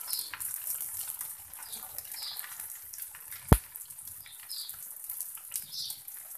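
Egg omelette sizzling in oil on a hot iron tawa over low heat, a steady fine crackle. A single sharp click about three and a half seconds in.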